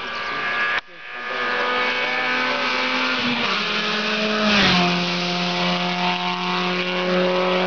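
Rally car engine at high revs coming past, its note dropping sharply as it goes by about four and a half seconds in. Then another rally car engine holds a steady high note.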